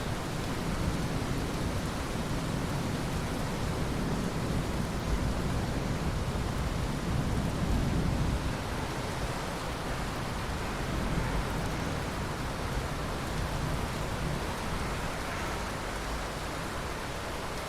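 Steady, heavy rain hissing down, with a low rumble of distant thunder swelling and rolling through the first half.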